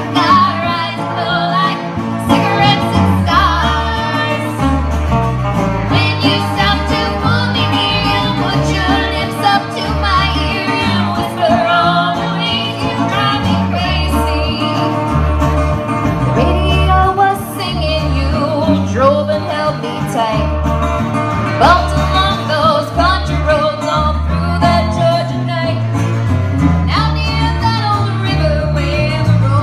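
Country song: a woman singing over guitar, with a steady bass beat.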